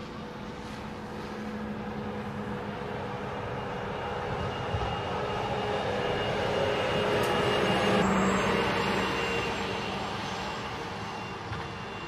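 Mercedes-Benz GenH2 hydrogen fuel-cell truck driving past: road noise with a high steady whine, swelling to its loudest about eight seconds in as the truck passes, then fading as it drives away.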